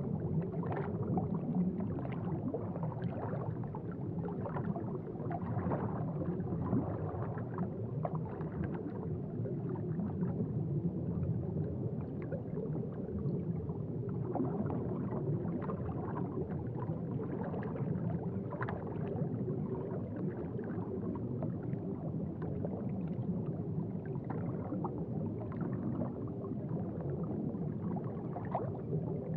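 Aquarium water bubbling and gurgling steadily, with many small bubble pops throughout.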